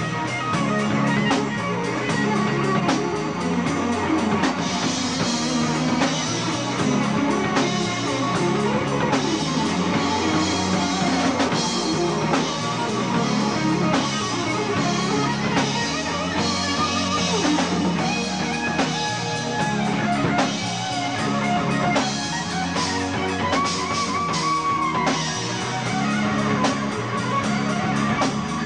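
Progressive rock band playing live with no vocals: electric guitar lead over drum kit and bass, with held, bending guitar notes in the second half.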